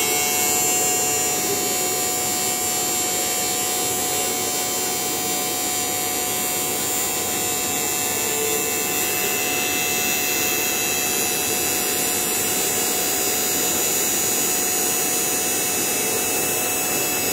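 Robot-mounted milling spindle running at high speed with its cutter in a wooden board: a steady whine with several high tones over the hiss of the cut, holding an even level throughout.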